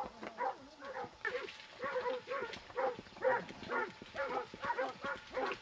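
An animal giving short, pitched calls over and over, about three a second.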